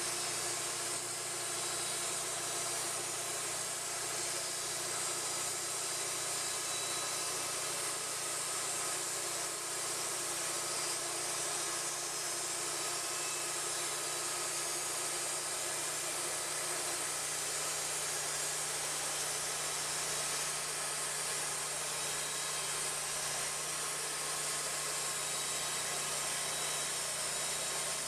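An engine running steadily under a constant hiss, with no change in speed or load.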